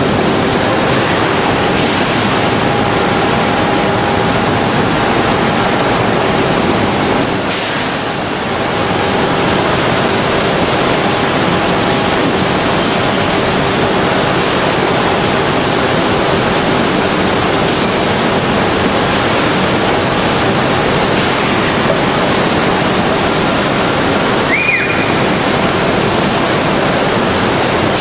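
Magnesium wire treatment station working on a ladle of molten iron for ductile iron: a loud, steady rushing roar with a constant low hum through it. There is a brief dip about eight seconds in and a short high chirp a few seconds before the end.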